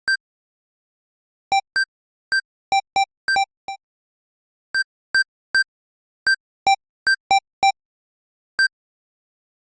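Electronic door keypad beeping as its buttons are pressed: short single beeps at two pitches, a higher one and a lower one, in irregular runs with pauses between.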